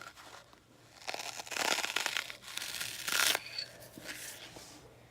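A knife sawing through a foam sponge cube: two scratchy, tearing strokes about a second long each, then a shorter one near the end.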